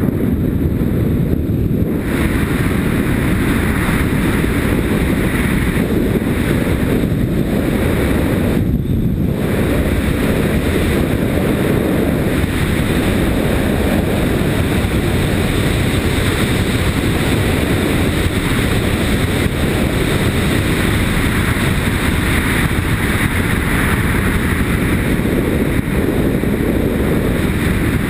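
Steady wind rush buffeting a helmet-mounted action-camera microphone at riding speed, over the low running of a Yamaha Ténéré motorcycle's engine.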